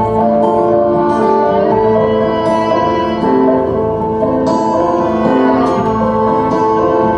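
Instrumental music: a melody of held, overlapping notes over a sustained accompaniment, at a steady level.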